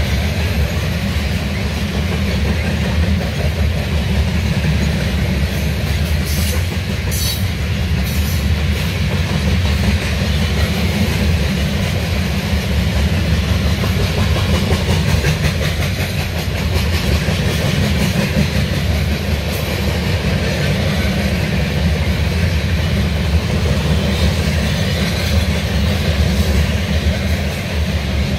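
A train passing close by, its wheels running steadily over the rails throughout.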